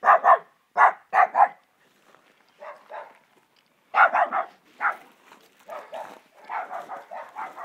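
Small dog barking repeatedly in short runs: loud barks in the first second and a half and again about four seconds in, then softer rapid barking toward the end.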